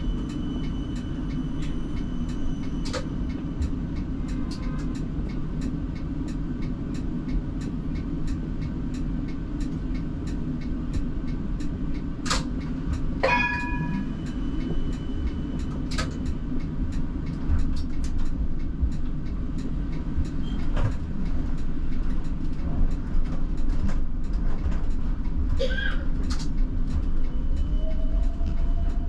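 Siemens Combino tram running along street track, a steady low rumble with scattered clicks and rattles. A short ringing tone comes about halfway through, and a rising whine near the end.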